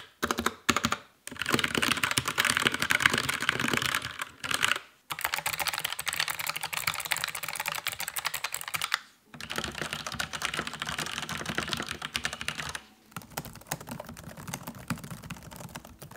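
Fast typing on several keyboards in turn, one of them the Krux Neo Pro 60% mechanical keyboard with Gateron Brown switches. There are a few single keystrokes first, then four runs of rapid key clatter, each a few seconds long with a brief stop between them, so that the different keyboards' loudness and sound can be compared.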